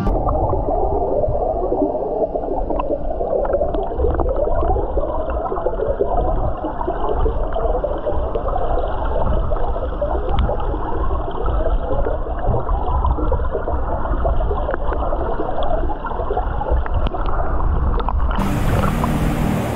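Water of a tiered waterfall churning and gurgling close to the microphone, over a low rumble. About 18 seconds in it switches to an even, full-range rushing hiss of falling water.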